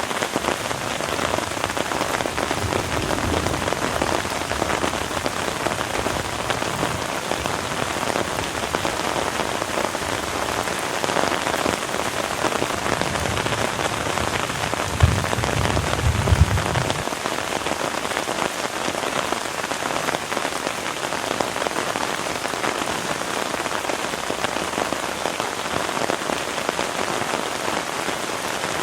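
Heavy rain falling steadily in a dense, even patter. About halfway through, a low rumble with a couple of sharp knocks lasts for about two seconds.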